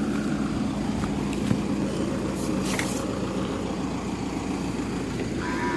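Steady low mechanical hum, with a held low tone underneath a rumble.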